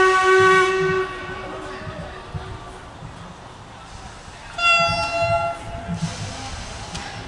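Steam locomotive whistles: a long blast that cuts off about a second in, then a shorter, higher-pitched whistle about four and a half seconds in.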